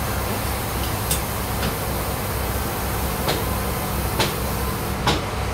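Sawmill bandsaw machinery running with a steady, pulsing low drone, with a handful of sharp clicks or knocks at irregular intervals.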